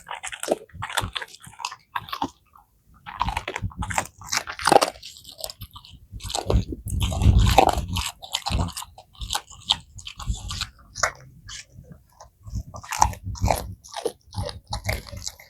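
A Rottweiler crunching raw chicken carcass and horse meat: a fast, irregular run of bone cracks and wet chewing, heaviest about halfway through.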